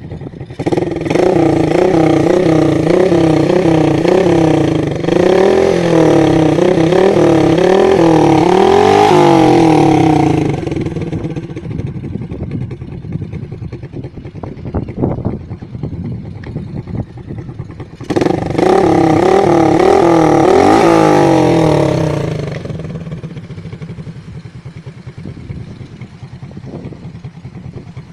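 RS 125 motorcycle with an aftermarket Gunner exhaust pipe, revved in quick repeated throttle blips for about ten seconds, then idling. It revs again in a second run of blips for about four seconds and drops back to idle.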